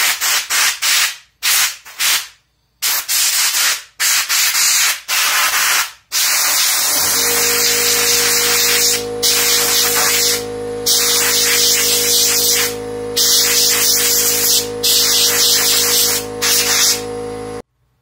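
Compressed air from a blow gun hissing in short blasts as the tractor's air filter element is blown clean. About seven seconds in, a steady motor hum starts beneath a longer run of blasts, and both stop abruptly just before the end.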